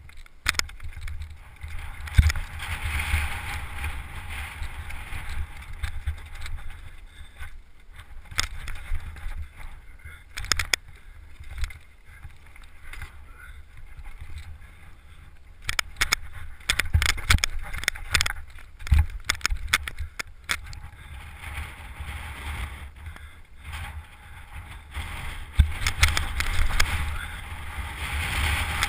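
Mountain bike ridden over rough trail, heard through an action camera's microphone: low wind buffeting on the mic and rolling noise that rises and falls, with many sharp knocks and rattles from the bike over bumps, thickest in the second half.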